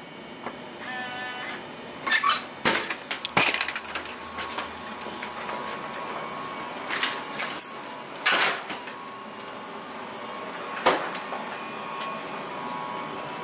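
Sharp knocks and thumps at an apartment door, a quick cluster about two seconds in and single ones spread out after, as the door is knocked on and opened.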